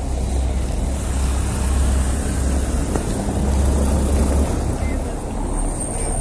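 Car traffic passing on a cobbled street: engines running low and tyres rumbling over the cobblestones in a steady low rumble.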